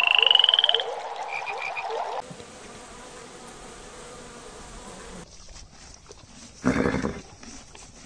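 Frogs calling: one loud pulsed trill rising in pitch, then three short higher notes over a chorus of other frogs. After about two seconds this gives way to the steady buzz of honeybees massed on the comb, and near the end there is one short loud rush of noise.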